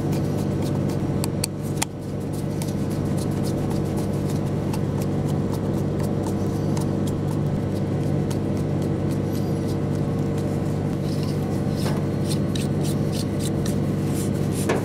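A steady low hum of several fixed tones, with small clicks and scrapes of a screwdriver and plastic parts as a Harting multi-pin connector insert is screwed into its housing; the clicks come more often in the last few seconds.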